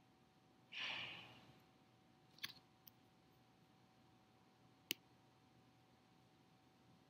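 Near silence in a small room: a person breathes in audibly about a second in, then come a few faint clicks and one sharper click near five seconds.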